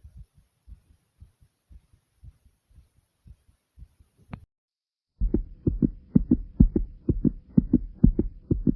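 A person's heart beating fast after exercise, a rapid run of low paired thumps. The beats are faint at first. A sharp click comes about four seconds in and is followed by a brief gap. The beats then return much louder, with a faint steady hum under them.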